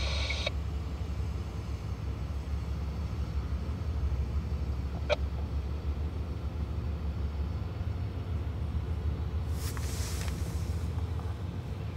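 CSX diesel locomotive's engine running with a steady low rumble as the locomotive creeps forward. There is a single sharp tick about five seconds in and a short hiss about ten seconds in.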